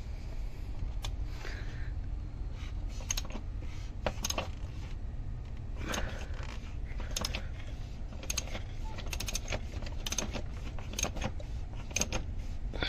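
Irregular light metallic clicks and clinks of hand tools being handled at an engine, over a steady low hum.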